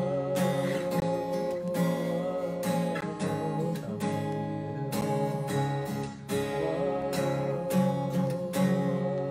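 Acoustic guitar strummed in a steady rhythm, its chords ringing on between the strokes.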